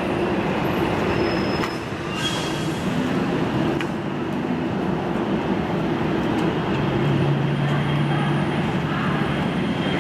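Airbus A320 jet engines at takeoff power: a steady, loud rushing noise of the jetliner on its takeoff run or climb-out.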